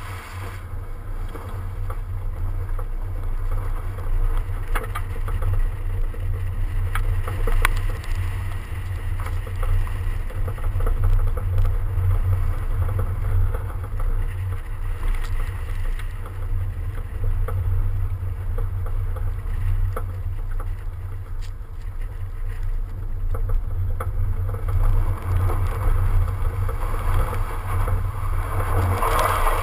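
Wind buffeting the microphone of a camera mounted on the outside of a BMW 335d as it drives a snowy slalom course: a heavy, steady low rumble that swells as the car gets moving at the start, with fainter road and tyre noise and scattered light ticks above it.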